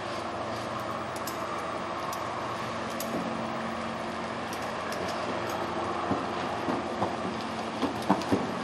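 Steady background rumble with a faint hum, then a few dull thuds near the end as a horse's hooves strike soft arena dirt when it breaks into a lope.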